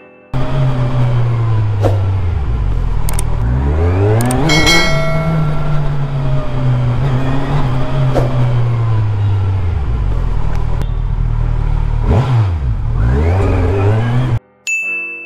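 Kawasaki Ninja 1000's inline-four engine running at low road speed, its revs rising sharply twice: about four seconds in and again near the end. A short ringing ding sounds about four and a half seconds in.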